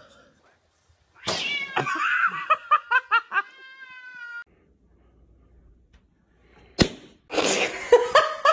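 Domestic cat meowing: a string of short meows ending in one longer, drawn-out call. After a pause there is a click, then more cat calling near the end.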